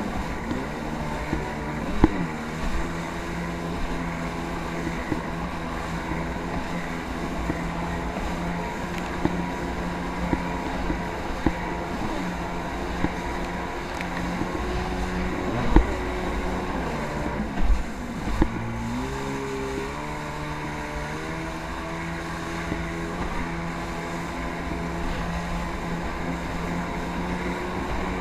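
Jet ski engine running steadily at speed. About halfway through its pitch drops as the throttle eases, then climbs back up in steps as it speeds up again. A few short thumps sound over wind on the microphone.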